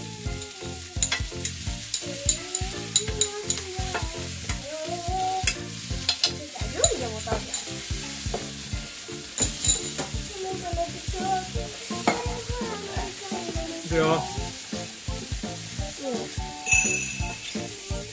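Onions and shimeji mushrooms sizzling in a frying pan as they are stir-fried, with scattered sharp clicks of the cooking chopsticks against the pan.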